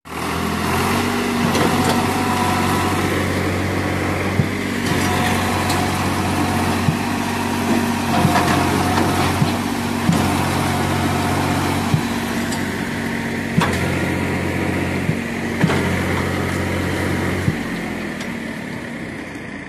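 Swaraj 735 FE tractor's three-cylinder diesel engine running under load, pulling a trolley full of stone chips with its rear wheels dug into loose soil. A sharp knock comes every couple of seconds, and the engine note drops away near the end.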